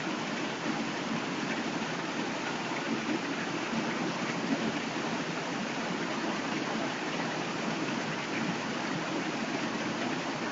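Heavy rain pouring down steadily, an even, unbroken hiss of the downpour on trees and waterlogged ground.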